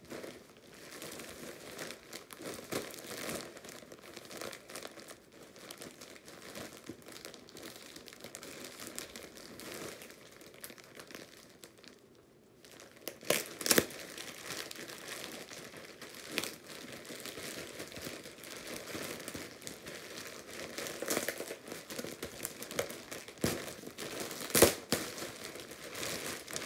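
White plastic mailer bag crinkling as it is handled and opened by hand. There are sharp snaps of the plastic a little past halfway and again near the end.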